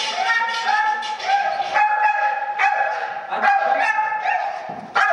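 Dog yipping and whining excitedly in high-pitched calls, one after another with hardly a pause.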